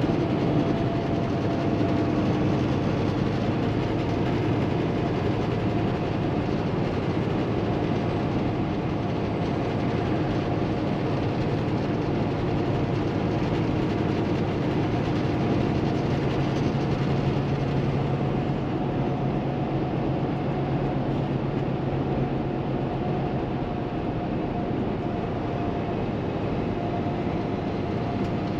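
Steady in-cab drone of a 2016 Kenworth T680 semi truck cruising at highway speed: its PACCAR MX13 diesel engine's hum mixed with tyre and wind noise.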